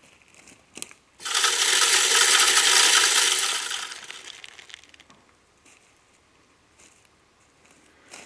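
Automatic tripod corn feeder firing in test mode: its timer-driven motor spins the spinner plate and flings out corn, a loud rattling spray of scattering kernels that starts suddenly about a second in, lasts about three seconds, then dies away.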